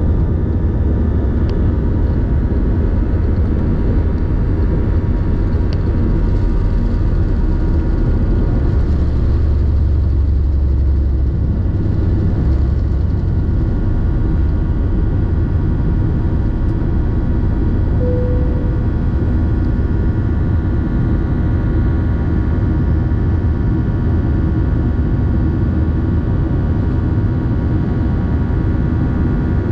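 Airliner jet engines at takeoff thrust heard from inside the cabin over the wing: a loud, steady noise with a deep rumble from the takeoff roll that eases about twelve seconds in as the aircraft lifts off and climbs.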